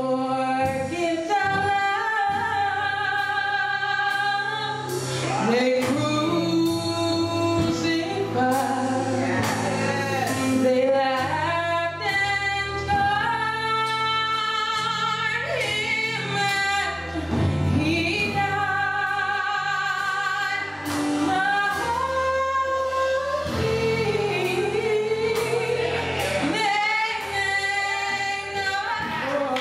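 Gospel song: a female solo voice sings long, ornamented lines with vibrato over organ or keyboard accompaniment, with a choir.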